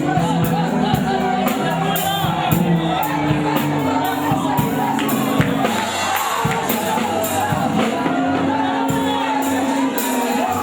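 Live gospel band playing: drum kit with frequent hits over bass, electric guitar and keyboard, with singing.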